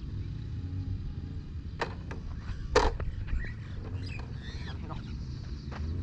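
Two sharp knocks, the louder one a little under three seconds in, over a steady low hum, with a few faint chirps after them.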